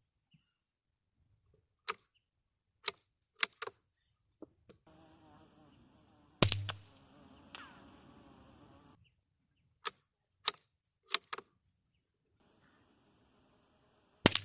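Suppressed Savage Mark II .22LR bolt-action rifle firing subsonic rounds. Four sharp metallic clicks of the bolt being cycled come first, then a muffled shot about six seconds in. The bolt is worked again with four clicks, and a second shot comes near the end.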